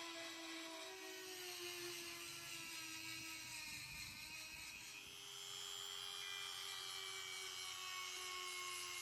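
A small high-speed power tool running steadily, its whine drifting slightly in pitch, typical of the grinding and polishing in a rust restoration.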